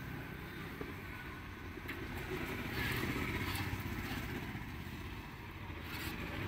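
Steady roadside traffic noise, with motorcycle engines running.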